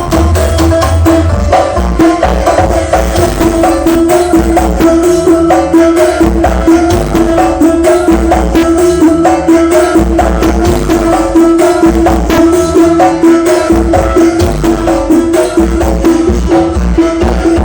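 Loud music through a large sound system, with heavy bass, a held tone and a busy hand-drum and tambourine beat.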